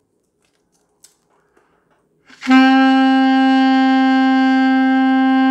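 Alto saxophone playing one long held note, the A fingered with the first two left-hand fingers, starting about halfway through and sustained at an even, unchanging strength as a four-beat beginner's long tone.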